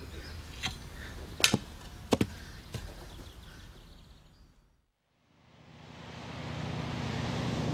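A few sharp knocks about a second apart, fading out to silence about five seconds in; then a steady low hum with a noisy wash fades in and grows louder.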